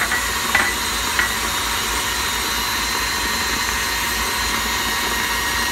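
KitchenAid stand mixer running steadily, its wire whip beating cake batter in a glass bowl, with a thin steady whine. Three short clicks come in the first second and a half.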